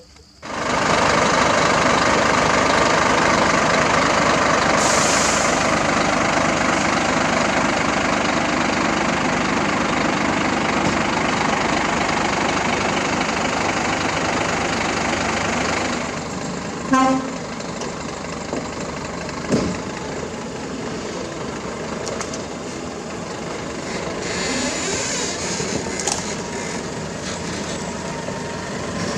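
Heavy diesel engine of the equipment or lowbed truck running loudly. It starts abruptly, eases off about 16 seconds in, and a short horn toot sounds about a second later.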